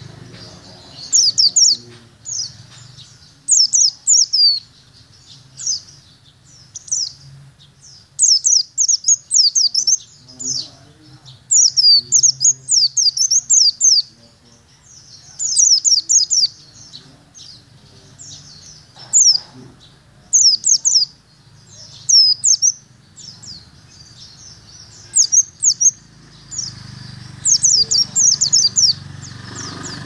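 Caged white-eye (pleci) singing: fast runs of high, thin chirping notes in bouts of about a second, repeated every couple of seconds, over a faint low hum that grows stronger near the end.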